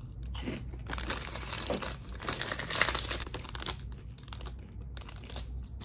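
Plastic snack packaging crinkling and rustling as it is handled, busiest about halfway through.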